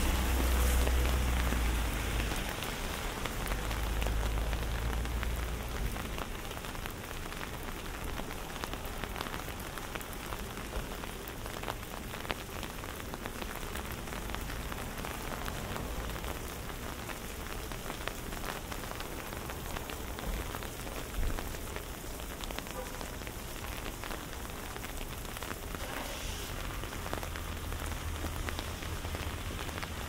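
Steady rain falling and pattering on surfaces, heard as an even hiss with countless small drop ticks. A low rumble sits under it for the first few seconds and then eases, and one brief louder sound stands out about two-thirds of the way through.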